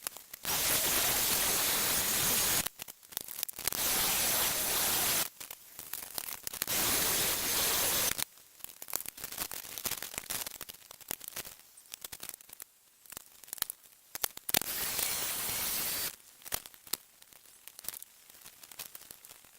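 Loud steady hissing in four bursts of about two seconds each, starting and stopping abruptly, with crinkling and crackling handling noise in between.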